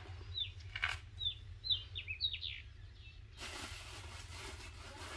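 A bird calling a short series of quick falling chirps in the first half, over a steady low outdoor rumble; about three and a half seconds in, a rush of hissing noise lasts for a second and a half.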